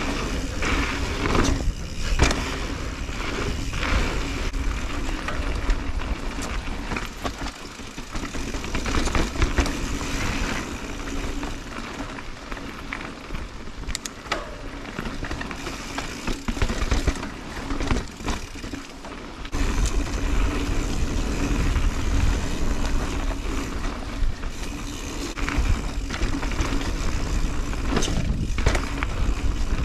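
A 2021 Santa Cruz 5010 mountain bike riding a dirt singletrack trail: tyres rolling over dirt, with frequent knocks and rattles from bumps, under a low rumble of wind on the microphone. The rumble eases a quarter of the way in and comes back stronger about two-thirds of the way through.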